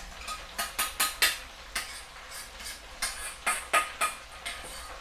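Metal spoon clinking and scraping against ceramic bowls while scooping thick ketchup-based katsu sauce from one bowl into another: irregular sharp clicks, about a dozen.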